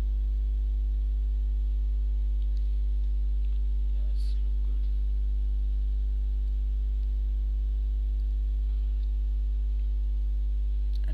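Steady low mains hum on the recording, with a faint click about four seconds in.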